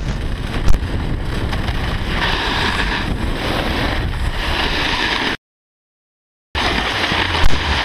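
Wind rushing over an action camera's microphone, mixed with the hiss of a snowboard sliding over snow, with a couple of brief knocks. The sound cuts out completely for about a second past the middle, then comes back the same.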